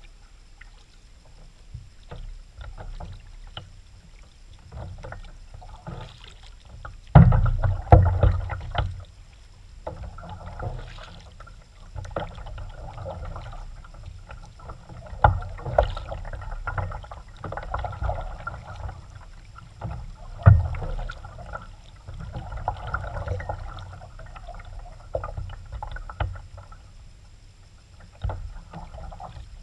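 Kayak paddling: water splashing and dripping with the paddle strokes, coming in patches of a second or two, with a few sharp loud knocks, the loudest about seven seconds in and again about twenty seconds in.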